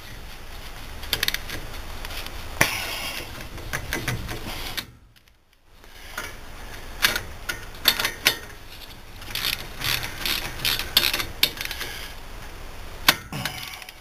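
Ratchet wrench clicking in short runs as it tightens the brake caliper bolts, with a brief pause about five seconds in.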